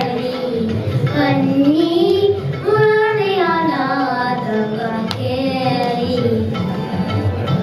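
Young girls singing a Kannada song in Carnatic style into microphones, the melody gliding up and down in long held phrases.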